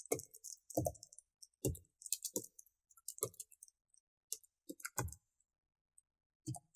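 Computer keyboard keys clicking as text is typed: about a dozen irregular keystrokes, with a pause of about a second near the end.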